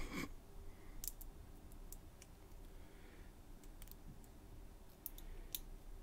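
Faint, scattered small metallic clicks and taps from handling a brass lock cylinder and a thin metal tool, at irregular intervals.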